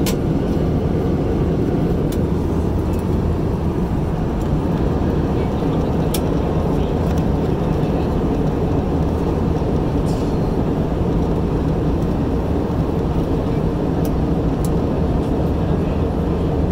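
Airbus A320 cabin noise in flight: a steady low rumble of engines and airflow heard from a window seat, with a few faint clicks.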